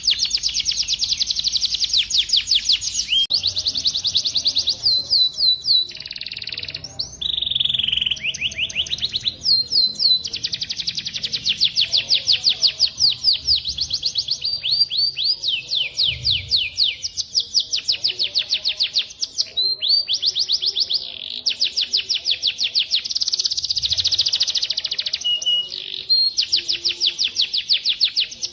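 Recorded cage-bird song used for tutoring: long, high-pitched trills made of fast falling notes repeated about seven times a second, in phrases broken by short pauses, with the occasional slower whistled note between them.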